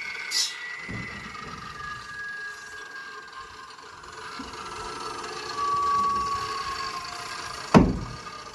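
A machine's whine that slowly falls in pitch over several seconds, with a short hiss about half a second in. A single loud sharp bang comes near the end.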